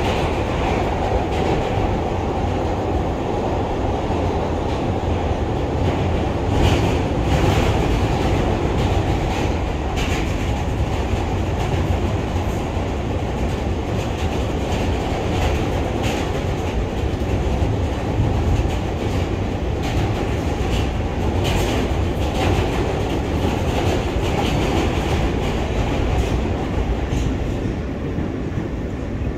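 Inside an R160B Siemens subway car running between stations: a steady rumble of wheels on rails, with scattered clicks and clunks over rail joints.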